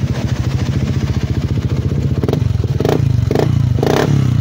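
Honda PCX160's single-cylinder four-stroke engine running through a JVT Pipe V3 aftermarket exhaust, idling with a steady low pulse and then blipped about five times in quick succession from about two seconds in. The exhaust is set to full, so it is fairly loud (medyo malakas).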